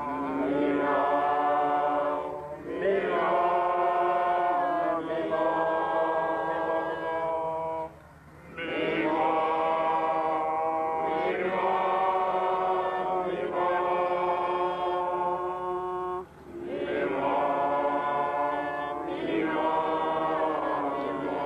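Voices chanting in long held notes, in four drawn-out phrases with brief breaks between them.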